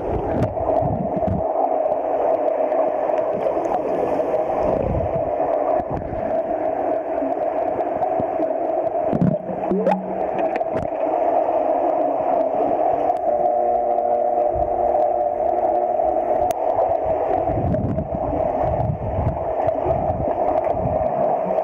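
Swimming pool heard underwater through a submerged camera: a steady muffled hum with gurgling water. A few more even tones join in for a few seconds past the middle.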